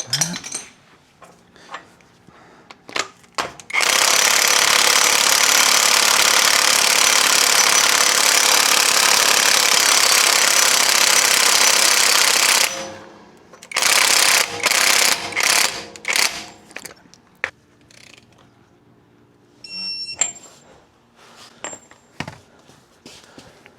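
Impact wrench hammering steadily for about nine seconds as it runs down the front axle nut, then a few shorter bursts.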